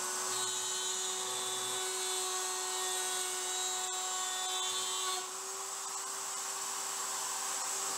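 Table-mounted router running at full speed with a steady high whine while a plywood board is pushed across the bit, cutting a 0.2-inch-deep dado in one pass. The cutting noise stops about five seconds in as the board clears the bit, leaving the router spinning freely.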